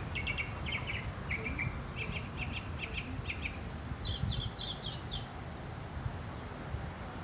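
Northern mockingbird singing: phrases of short, rapid notes, each phrase repeated several times before it switches to the next, with a higher-pitched phrase about four seconds in. The song stops about a second later.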